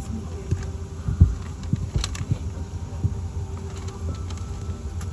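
Aircraft cabin noise: a steady low hum with a faint steady whine, broken by irregular low thumps and a few sharp clicks.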